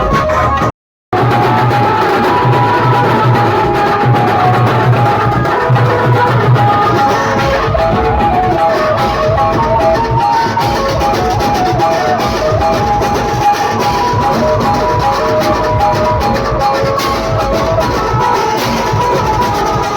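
Loud procession music with drums and a stepping melody line, played over a large sound system. It cuts out briefly about a second in.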